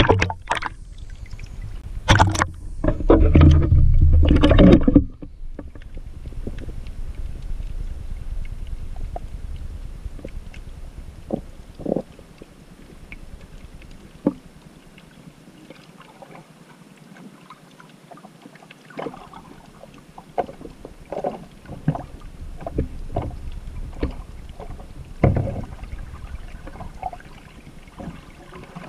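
Water sloshing and splashing against a half-submerged camera at the surface for about the first five seconds. Then comes muffled underwater noise, with scattered short clicks and knocks, as the camera is held below the surface.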